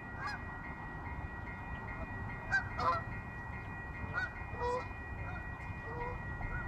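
Electronic railroad crossing bell ringing steadily, with several short bird calls over it, the loudest about two and a half seconds in, and a low rumble underneath.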